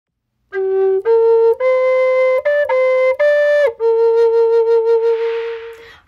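Wooden flute playing a short melody of several notes, then a long held note with a slight waver that fades out, with a soft rushing hiss under it near the end.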